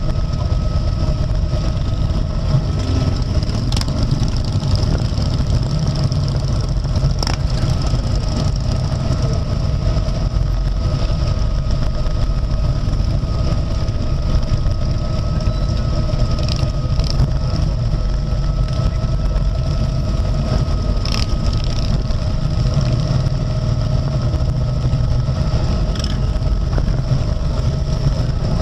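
Steady low rumble of a Harley-Davidson Road King's V-twin engine mixed with the many motorcycle engines around it riding slowly in a pack. A thin steady whine sits over the rumble, with a few sharp clicks.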